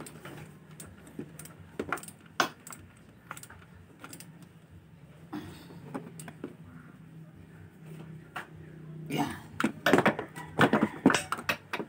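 Metal hand tools and engine parts clinking as they are handled in a scooter's engine bay. Scattered single clicks give way to a quick run of clattering near the end.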